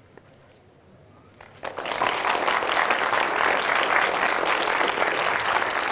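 Audience applause: a short quiet, then clapping starts suddenly about a second and a half in and carries on steadily.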